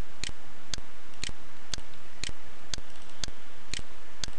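Even ticking, about two ticks a second, over a steady hiss.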